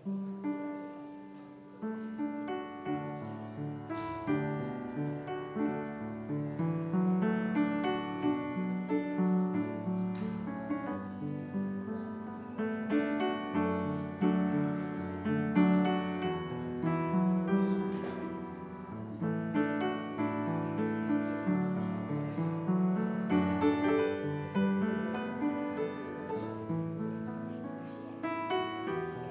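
Church keyboard music starting up: chords and a melody played on the keyboard at the organ console.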